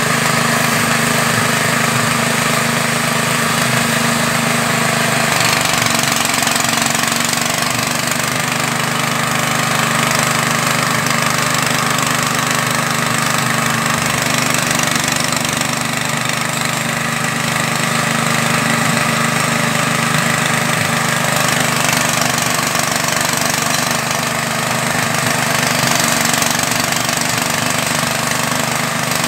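Fish-feed pellet machine driven by a small engine, running steadily while it presses out pellets: a constant engine drone with machine noise, its pitch shifting slightly about five seconds in.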